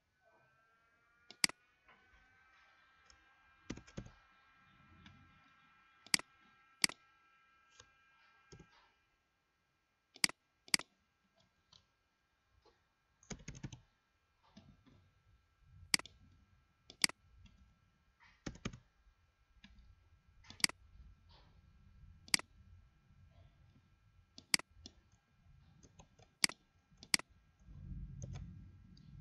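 Computer mouse clicks, single or in quick pairs every second or two, with short bursts of keyboard typing between them.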